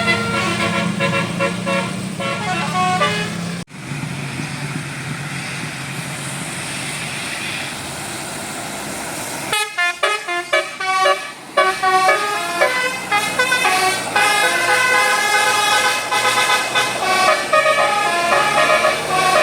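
Multi-tone 'telolet basuri' bus horn playing a quick melody of short notes over a low engine hum. After an abrupt cut about four seconds in, only bus engine and traffic noise are heard. About ten seconds in, another cut brings a longer horn tune of rapid staccato notes.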